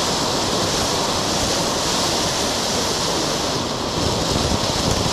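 Ground fountain firework spraying sparks with a steady, loud rushing hiss.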